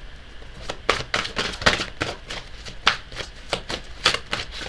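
A tarot deck being shuffled by hand: a run of sharp, irregular card slaps and flicks, a few a second.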